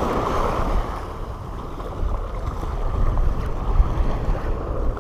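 Small waves washing in over seaweed-covered rocks, with wind gusting on the microphone. The wash fades about a second in, and the wind rumble picks up after about two seconds.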